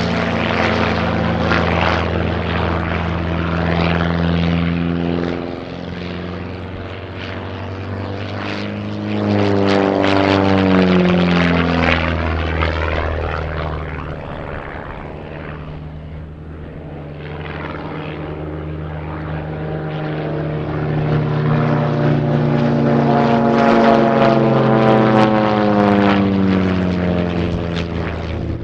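Propeller-driven aerobatic biplanes flying a display: engines droning, with pitch and loudness swinging up and down as the planes climb, dive and pass, several engine notes overlapping. Quietest about halfway through, louder again near the end.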